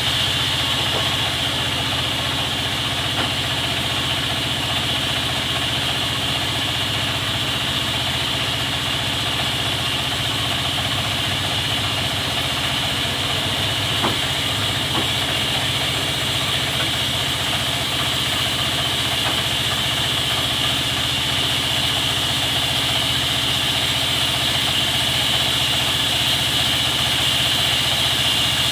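Sawmill machinery running steadily: a constant low engine-like hum under a high, unchanging whine.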